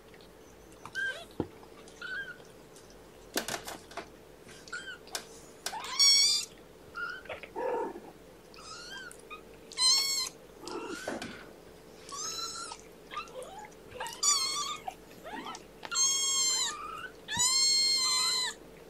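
Three-week-old kittens mewing: a string of short, high-pitched mews with soft chirps between, growing louder and longer in the second half, the last one drawn out for over a second.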